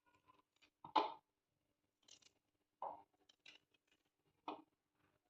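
Knife cutting roasted, peeled ginger root into pieces: three short cuts about a second and a half apart, the first the loudest.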